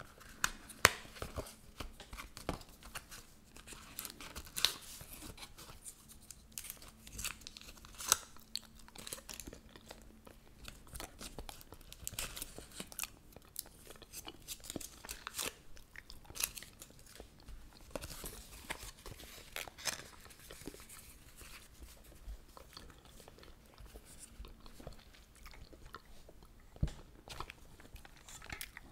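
Close-miked gum chewing mixed with irregular sharp clicks and crinkles from a Trident gum pack being handled and opened.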